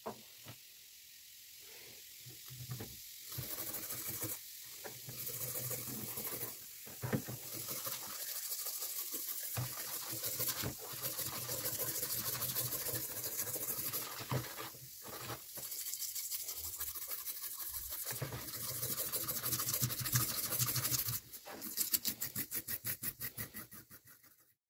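A wire brush scrubbing a rusty steel knife blade in a tub of liquid, a wet rasping scratch that stops and starts as the rust and sludge are worked off. Near the end it turns into quick, regular back-and-forth strokes, about four a second.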